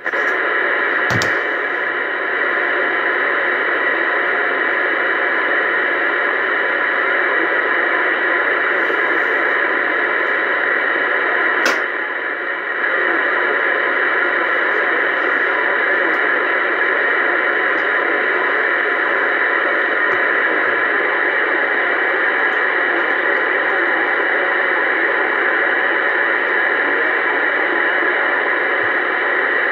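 Uniden Bearcat 980SSB CB radio on channel 28 AM giving out a steady hiss of receiver static through its speaker. A sharp click about a second in and another near twelve seconds, the second followed by a brief dip in the hiss.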